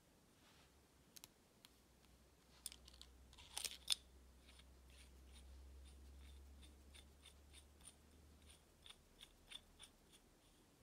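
Faint small metal clicks of a silver fountain pen's parts being handled and fitted together: a few sharp clicks, the loudest about four seconds in, then a run of light, evenly spaced ticks, about three a second.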